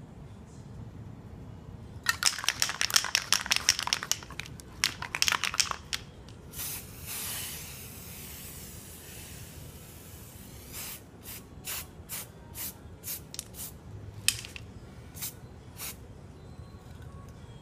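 Aerosol can of water-based reflective spray: a few seconds of quick rattling that fits the can being shaken, then one steady hiss of spraying lasting about four seconds, then about ten short spurts.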